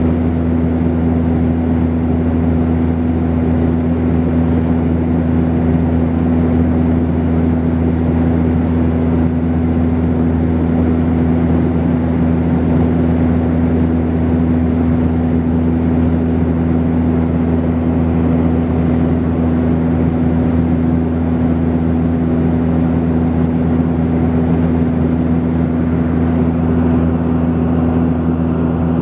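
Steady cabin drone of a Saab 340B turboprop airliner in flight: its two turboprop engines and propellers give a constant low hum with a few unchanging tones over a rushing noise.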